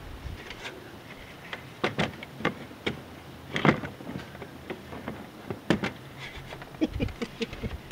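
Knocks, clicks and scrapes of a small metal-framed window being pushed and worked into a cut opening in a coop wall panel. There are a dozen or so separate knocks, the loudest about halfway, with a quick run of smaller clicks near the end.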